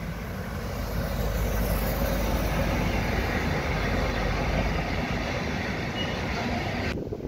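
Electric freight train with container wagons passing close by: a steady rumble and rolling noise of wheels on the rails, growing louder in the first second, then cut off abruptly near the end.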